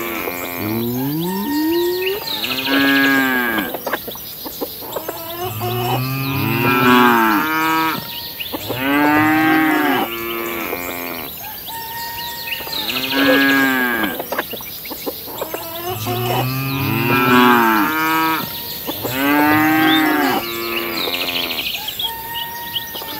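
Cow mooing over and over, about one long moo every two seconds, each call rising and then falling in pitch.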